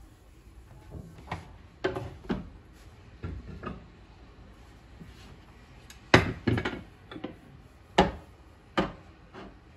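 Dishes and kitchenware being handled and set down on a hard surface: a series of separate knocks and clatters, the loudest a little after six seconds in and at eight seconds.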